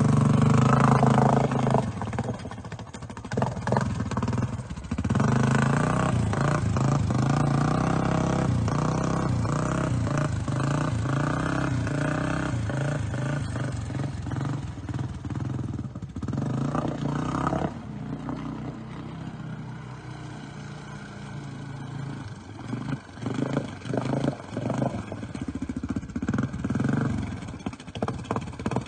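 ATV engine revving up and down as the four-wheeler churns through deep muddy water, loudest in the first two seconds, then in short choppy bursts of throttle near the end.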